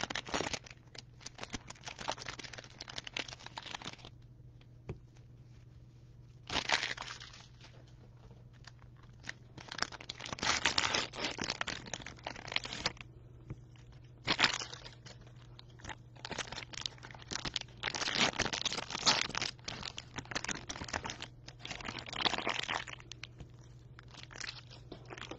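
Cellophane wrappers of trading card value packs crinkling and tearing as the packs are opened, in several bursts of a second to a few seconds with short pauses between them.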